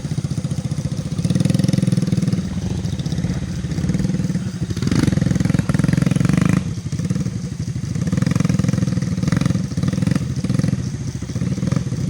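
Motorcycle engine running, getting louder and softer in stretches as the throttle opens and eases off.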